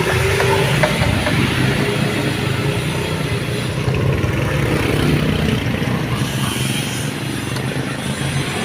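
An engine running steadily with a low hum, under a wash of background noise.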